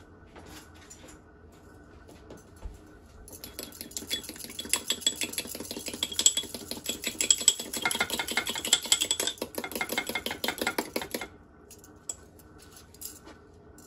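A utensil beating a raw egg in a small ceramic ramekin: a fast, even run of light clinks that starts a few seconds in and stops a few seconds before the end.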